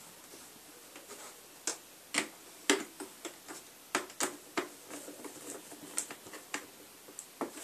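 Irregular plastic clicks and taps from the keys and key frame of an opened Casio keyboard as they are handled and pressed into place, with one sharper knock about a third of the way in.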